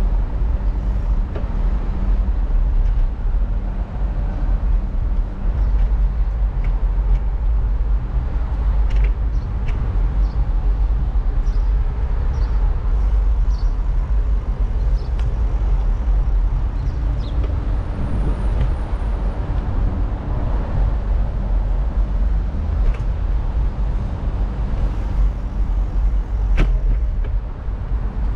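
Steady low rumble of riding a bicycle with a camera along city streets and paved sidewalks: wind and road noise on the microphone, with scattered short clicks and rattles.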